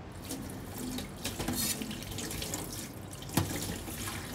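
Water running from a tap, with irregular splashing, and one sharp knock about three and a half seconds in.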